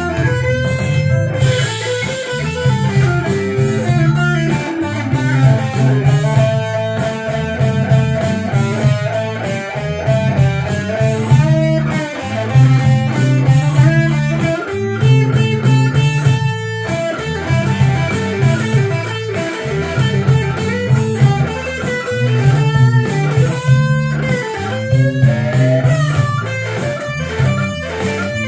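Background music led by an electric guitar over a bass line.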